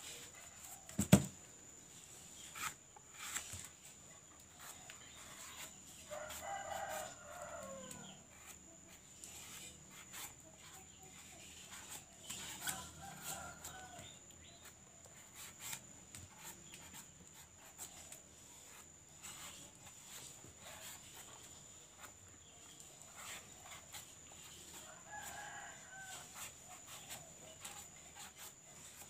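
A rooster crowing faintly three times, each crow lasting a second or two. Scattered sharp taps and clicks, with one loud knock about a second in, come from cutting eggplant over a plastic basket.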